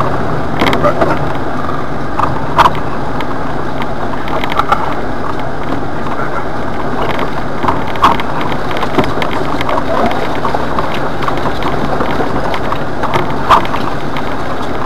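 Jeep Wrangler running steadily in low gear as it climbs a wet, rutted dirt trail, heard from inside the cab. Several sharp knocks and rattles come through as it jolts over the ruts.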